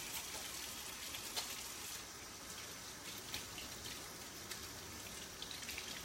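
Sink tap running with water splashing as hands are washed under it, a steady rush broken by small irregular splashes.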